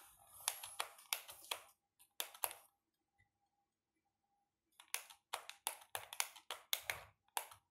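A series of short sharp clicks and taps, about three a second, in two groups with a pause of about two seconds between them.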